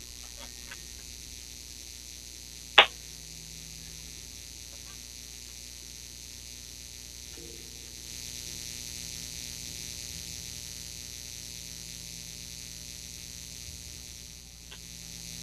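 Steady electrical hum and hiss from a modular synthesizer rig and mixing desk that is not yet playing, with one sharp click about three seconds in and a few faint ticks. The hiss grows slightly about eight seconds in.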